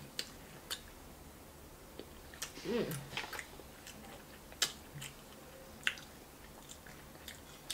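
Close-up chewing of king crab meat: soft wet mouth sounds with scattered sharp clicks and smacks. A brief hum of the voice about three seconds in.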